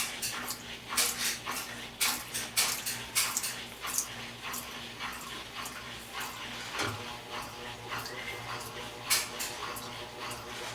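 GE EcoPerformance 15 kg washing machine's electronically driven mechanism clicking and knocking irregularly over a steady hum as it shifts its gears to engage the spin cycle. Near the middle there is a low thump, and after it a steady motor tone sets in.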